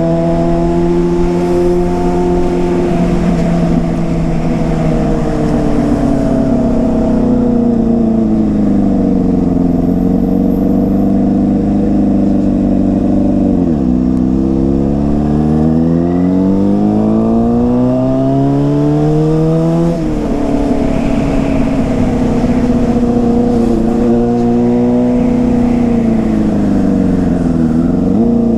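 Yamaha Fazer 600 inline-four engine, with a WR slip-on exhaust, running under way on the road. Its pitch holds, drops sharply about halfway, climbs steadily for several seconds, drops at a gear change about two-thirds in, then settles again.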